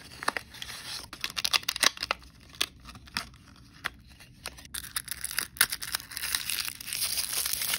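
Packaging of an L.O.L. Surprise toy capsule being opened by hand: sharp clicks and crackles of paper and clear plastic shell, then a small wrapper crinkling continuously from about six seconds in.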